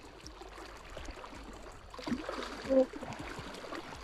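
Stream water running steadily over rocks, with one short louder sound about two and a half seconds in.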